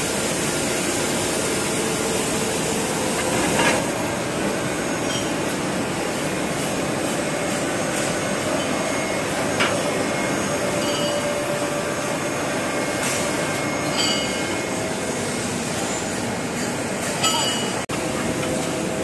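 External cylindrical grinding machine running, its wheel grinding a metal shaft under coolant spray: a steady mechanical drone with a few sharp clinks.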